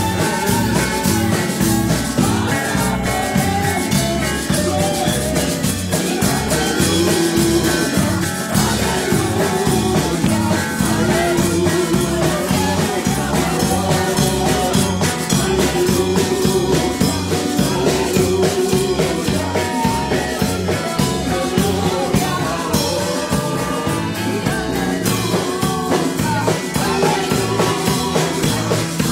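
Live church praise band: a woman singing lead into a microphone over electric bass and conga drums, with a steady beat.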